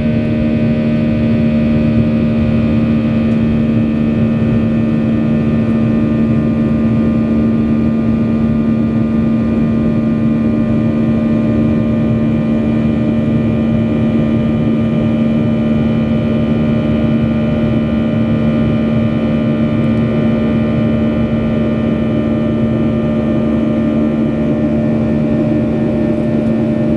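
Jet engines of a Boeing 737-800 (CFM56-7B turbofans) heard inside the passenger cabin: a steady drone with several held tones that neither rise nor fall.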